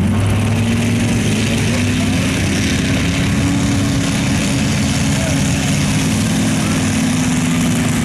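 Rear-mounted engine of a Chevrolet S-10 mega mud truck running hard under load, its pitch rising slightly about a second in and then holding steady, as the big tires spin and churn through deep mud.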